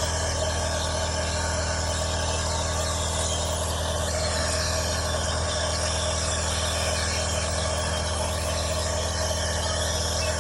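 A small motor running with a steady, unchanging hum.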